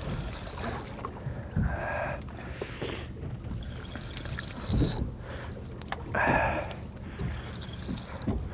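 Water slapping against the hull of a small boat at sea, over a steady low rumble, with a few short louder noises about two, five and six seconds in.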